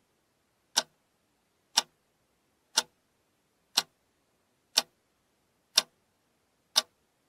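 Clock ticking sound effect: a single sharp tick once a second, evenly spaced, with dead silence between ticks.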